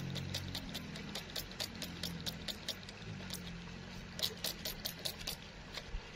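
Small sharp clicks and scratches at an irregular pace, several a second and thicker near the end, from fingers rubbing grit off a wet pebble, over a faint low steady drone.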